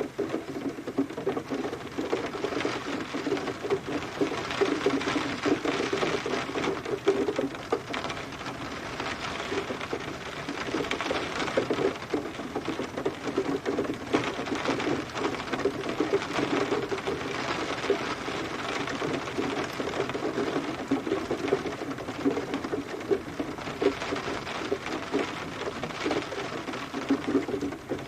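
Steady rain, a dense pattering of many drops.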